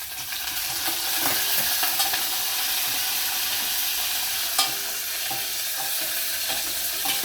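Tempering seeds and curry leaves sizzling in hot oil in a pot while being stirred, a steady hiss that swells just after the start. A few sharp clicks ring out over it, the loudest about two-thirds of the way through.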